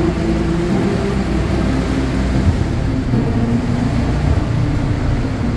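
A RIB boat's engine running steadily, a continuous low rumble with a few faint steady tones over it.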